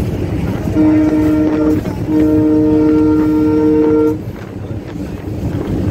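Diesel locomotive's air horn heard from inside the cab, sounded twice: a short blast of about a second, then a longer blast of about two seconds. The chord cuts off sharply, over the steady rumble of the engine and the wheels running on the rails.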